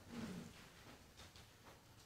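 Near silence: room tone, with a few faint, brief sounds.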